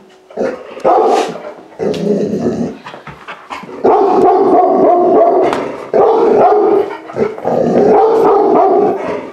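Dog barking in rapid runs: about five loud bursts of a second or more each, the longest starting about four seconds in.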